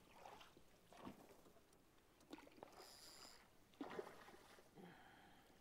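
Near silence with a few faint knocks and splashes; the loudest, about four seconds in, is a hooked musky thrashing at the water's surface.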